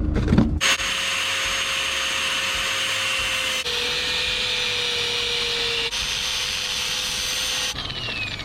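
A handheld power tool running steadily with a constant whine over a loud hiss, broken by two abrupt cuts a few seconds apart. The whine falls in pitch near the end as the tool winds down.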